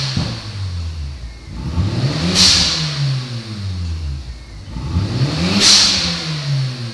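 Car engine revved in repeated blips about three seconds apart, its pitch rising and then falling away. At the top of each rev comes a short, loud, sneeze-like hiss.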